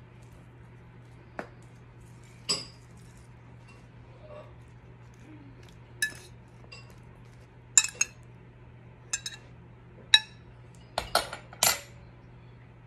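A metal fork clinking against a ceramic plate as a salad is stirred: about ten short, separate clinks, coming closer together near the end.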